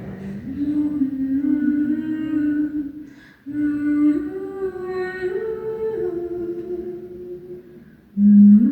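A female voice singing a wordless melody in long held notes that step up and down, with a short breath break about three and a half seconds in and another near the end.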